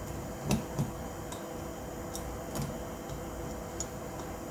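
Scattered light clicks and taps, about six at irregular intervals, from the small parts of a Hi-Capa gel blaster being handled and fitted together during reassembly, over a steady low room hum.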